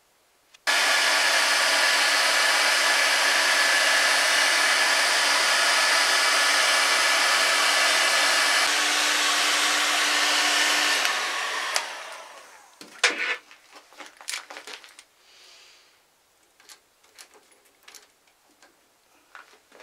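Electric heat gun blowing steadily, heating a tapered roller bearing so its inner race will slip onto a lathe spindle, then switched off and winding down. Afterwards come a few metal clicks and knocks as the bearing is handled, one sharper knock shortly after the gun stops.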